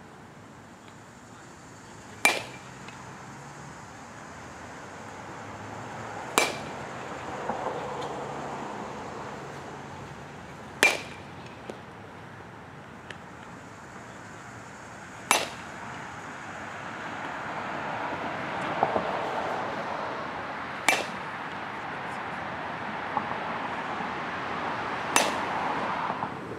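Baseball bat striking tossed balls in batting practice: six sharp cracks about four to five seconds apart, each with a brief ring.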